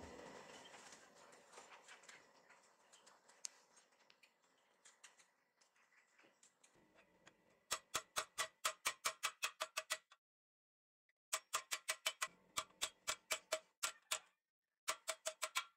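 Rapid hammer blows on red-hot leaf-spring steel on a steel anvil, about six light metallic strikes a second, in three runs broken by short pauses. Before the hammering, a hiss from the charcoal forge fire fades away.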